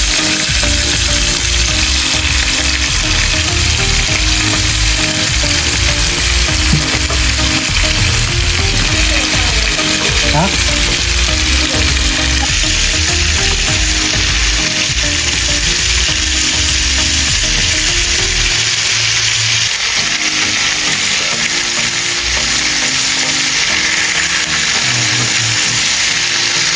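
Marinated chicken drumsticks frying in hot oil in a pan: a steady, loud sizzle.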